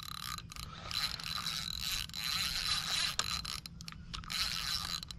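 Spinning reel being cranked to bring in a hooked carp, its gears whirring with a steady high tone, broken by a few short pauses.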